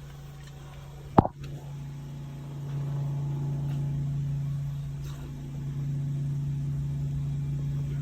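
A sewer water jetter's engine running with a steady low hum, getting louder about three seconds in. A single sharp knock comes about a second in.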